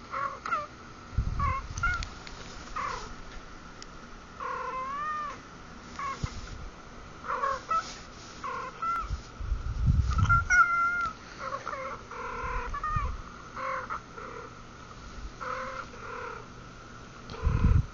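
Domestic cats meowing over and over, a string of short rising-and-falling meows, over a faint steady high tone. A few low thuds come about a second in, around the middle, and near the end.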